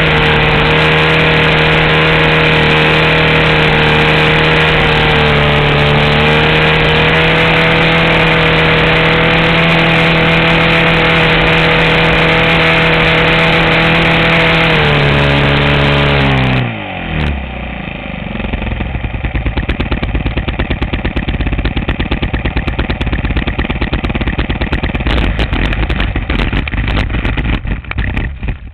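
A model airplane's motor runs at a steady pitch with wind rushing past. A little over halfway through it is throttled back, its pitch dropping in steps until it dies away. The landing gear then rattles and bumps fast and loud as the plane rolls out through grass.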